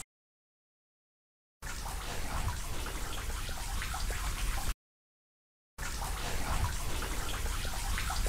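Running water, a steady rushing trickle with many small crackling drip-like ticks. The sound starts in dead silence and comes in about one and a half seconds in. It cuts out abruptly to dead silence for about a second midway, then resumes.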